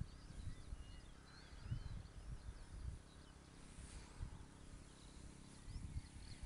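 Birds chirping faintly over a low, uneven rumble of wind on the microphone.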